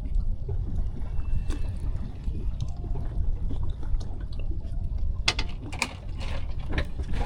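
Water lapping and sloshing against a small boat's hull over a steady low rumble, with a few sharp knocks near the end.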